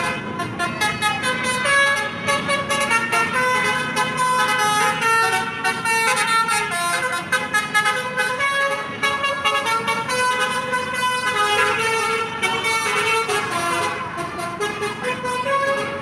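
Bus's telolet basuri multi-tone horn playing a melody, several pitched notes sounding together and stepping quickly from note to note, over traffic noise.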